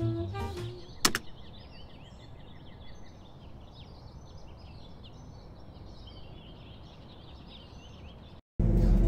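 Faint outdoor ambience: a steady background hiss with many small birds chirping, after jazz music fades out and a single sharp click. The sound cuts off abruptly near the end and music starts.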